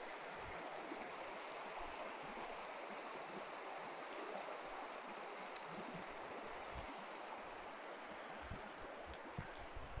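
Faint steady rush of a small woodland stream, with one sharp tick a little past halfway.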